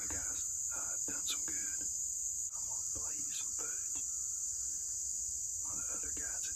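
Chorus of crickets and other insects: a steady, high-pitched drone that does not let up, with fainter wavering sounds underneath.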